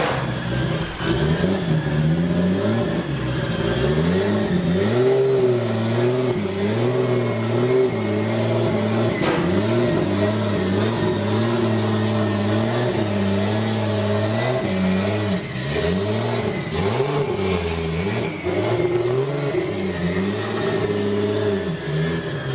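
Turbocharged Toyota Supra engine running with the throttle blipped over and over, the revs rising and falling about once a second.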